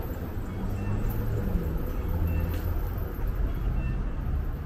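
Street traffic: a steady low rumble of vehicle engines running and passing.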